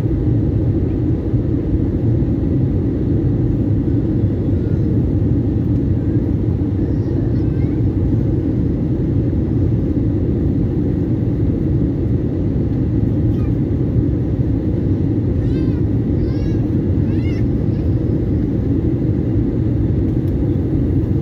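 Steady jet-engine and airflow rumble inside the cabin of an Airbus A320-family airliner, heard beside the wing and engine during the descent to land.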